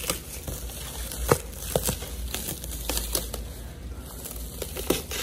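Plastic stretch wrap crinkling and crackling as it is pulled by hand around an engine block, in irregular sharp crackles.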